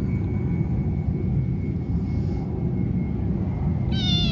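A kitten meows once near the end, a short high call that falls in pitch, over a steady low rumble.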